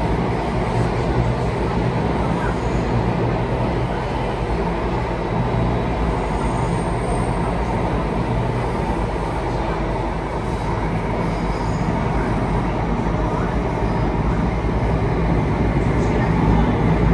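Singapore MRT train running between stations, heard from inside the carriage: a steady rumble of wheels on the rails and running gear at an even level.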